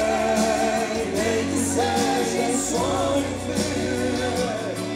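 Live sertanejo music: male singers holding long sung notes over electric bass and a backing band.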